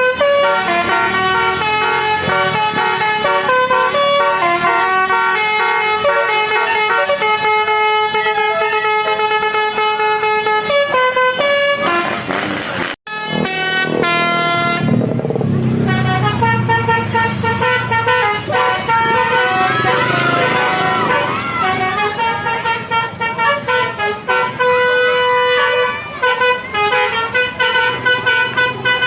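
Indonesian bus "telolet basuri" multi-tone musical horn playing a tune in stepped, held notes, cut off suddenly about halfway through; a bus engine rumbles by, and the horn tune comes back and runs on.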